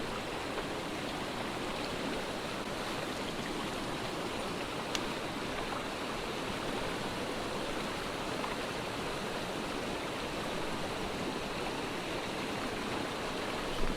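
Mountain creek water rushing steadily, a fast-moving flow running with a constant even hiss.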